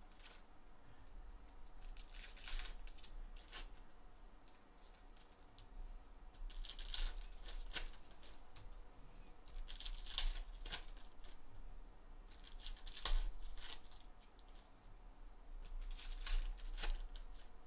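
Foil trading-card pack wrappers of 2020 Donruss Optic Football hobby packs being torn open and crinkled, in short scratchy bursts every few seconds, about six in all.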